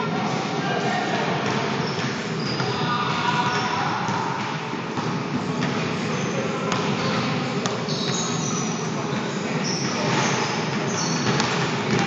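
Basketball play on a hardwood gym floor: the ball bouncing, short high-pitched sneaker squeaks and players' voices calling out over one another.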